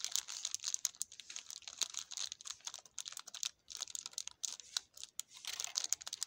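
Plastic gummy-bear bag crinkling and crackling as it is handled, an irregular stream of crisp crackles that is busiest near the end.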